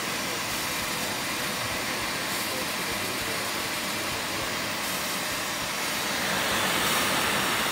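CNC router spindle running a 1/4-inch compression bit through half-inch PVC sheet on a clearance pass: a steady, loud machining whir. It grows louder and higher about six seconds in.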